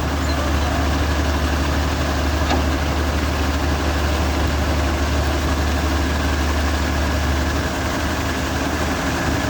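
Combine harvester running steadily while unloading wheat: a heavy engine sound with a strong, steady low hum under an even wash of machinery noise.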